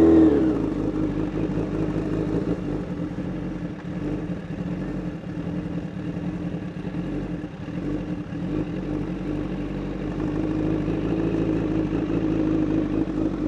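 2012 Honda CBR1000RR's inline-four engine with an aftermarket SC-Project exhaust, revving up as the bike pulls away, then running at low speed. It grows fainter as the bike rides off and louder again as it comes back.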